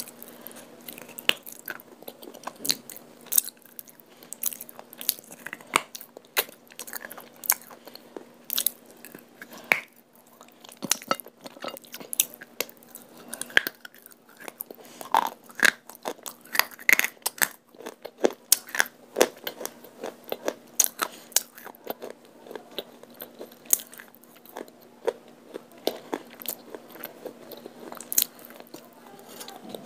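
A person biting and chewing brittle white pieces coated in multani mitti (Fuller's earth) paste, with irregular sharp crunches throughout.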